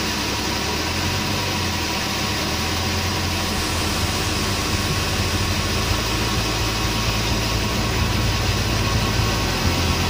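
Sawmill saw machinery running steadily as a log is fed through it: a continuous low drone under an even hissing noise.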